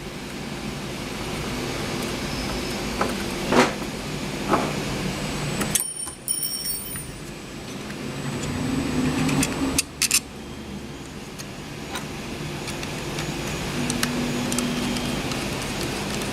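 Screws being driven back into the outer housing of a 3D-printer nozzle module, with small metallic clicks and handling of the parts over a steady background hum.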